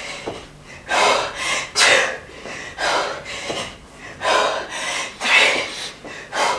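A woman breathing hard through V-up to knee hug reps, puffing out a strong breath about once a second.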